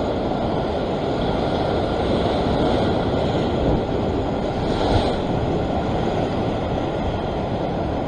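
Ocean surf churning and washing over shoreline rocks, a steady, even rush.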